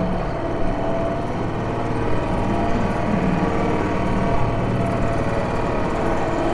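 British Seagull two-stroke outboard motor running steadily at cruising speed, driving a small boat along.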